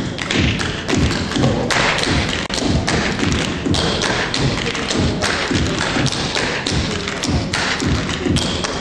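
Tap shoes striking a stage floor in fast, irregular rhythms, with no music behind them: an unaccompanied tap break by two dancers.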